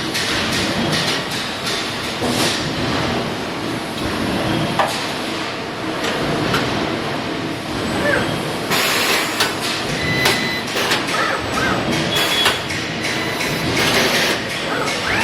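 Robotic spot-welding cell at work: a steady industrial din with repeated clacks and knocks from the welding equipment.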